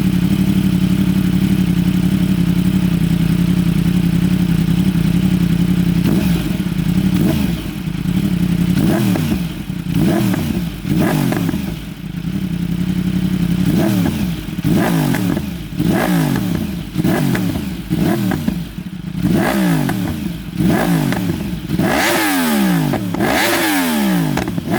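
2015 Yamaha R1M's crossplane inline-four through an Akrapovic full titanium exhaust, idling steadily for about six seconds. It is then revved again and again in quick blips, each rising and dropping back, roughly one a second.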